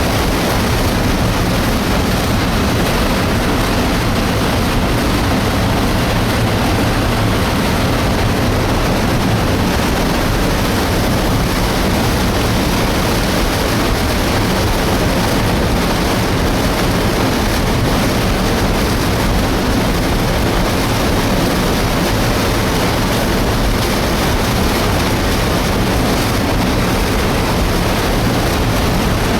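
Illgraben debris flow of mud, water and rock rushing down the torrent channel: a steady, loud rush that does not let up.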